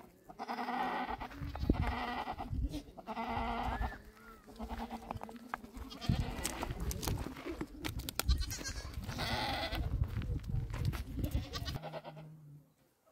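Goats bleating several times, a run of calls in the first four seconds and another about nine seconds in. Under them, a low rumble with scattered knocks as stones are picked up and carried over rocky ground.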